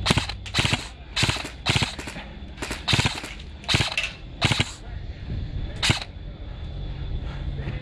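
Airsoft guns firing in about nine short, sharp bursts over six seconds, the last one standing alone about two seconds after the rest.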